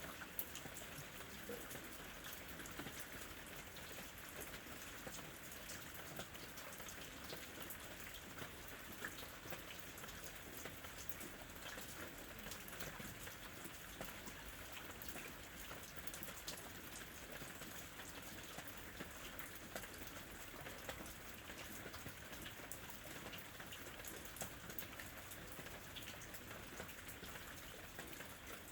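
Steady summer rain falling on a surface, an even hiss with many small drop ticks.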